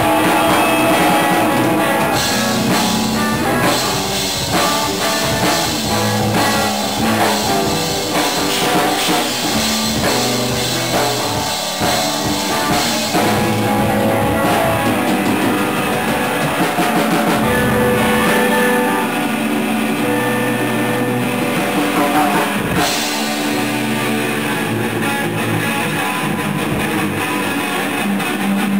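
A rock band playing live: a drum kit with cymbals and two electric guitars through amplifiers. The cymbals ease off about halfway through while the guitars and drums carry on.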